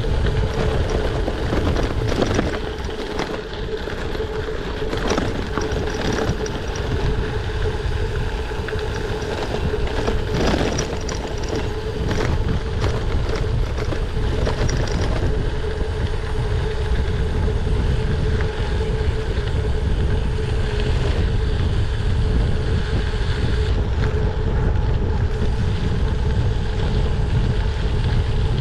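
Wind rushing over a GoPro action camera's microphone and a gravel bike's tyres rolling on a gravel road, with sharp knocks and rattles from bumps in the first half.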